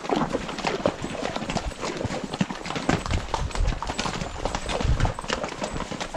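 Mules' hooves clip-clopping at a walk over stones in a rocky creek bed: many overlapping, irregular strikes from several animals.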